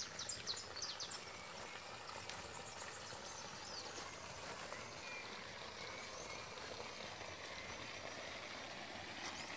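Faint rural outdoor ambience: a steady, even hiss with scattered small bird chirps, most of them in the first second.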